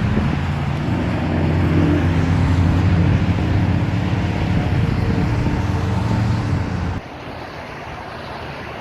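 Komatsu D65EX bulldozer's diesel engine running steadily, its pitch rising slightly about a second in. It cuts off abruptly near the end, leaving a quieter wind-like hiss.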